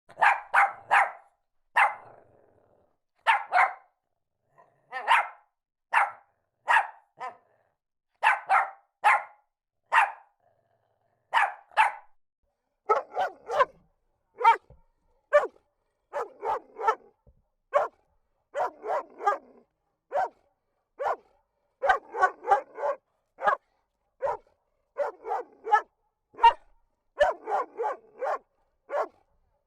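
Dogs barking in short groups of one to three barks with brief silent gaps between. From about halfway the barks are lower-pitched and come closer together.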